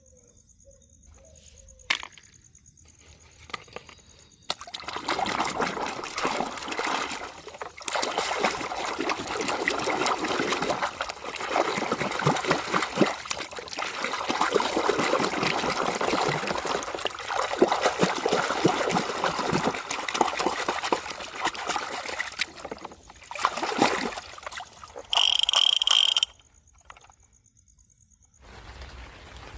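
Water splashing and trickling in an uneven stream as toy vehicles are washed. Near the end a short, high steady tone sounds.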